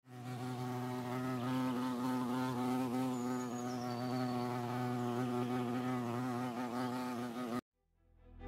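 Honeybees buzzing, a steady, slightly wavering droning hum that cuts off suddenly near the end.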